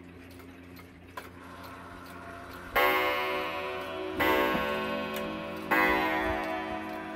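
Japanese box clock ticking, then its count-wheel movement striking the hour on a coiled wire gong. Three ringing strokes about a second and a half apart start nearly three seconds in, each fading slowly, and a fourth begins just at the end, as it strikes five o'clock.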